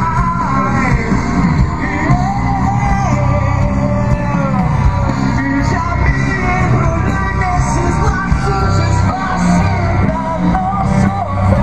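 Music with a singer over a steady bass and beat, in a rock style.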